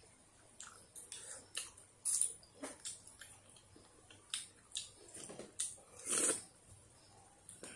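A person eating noodle soup from a small bowl with a spoon: an irregular scatter of short clicks and slurps, the loudest about two seconds in and about six seconds in.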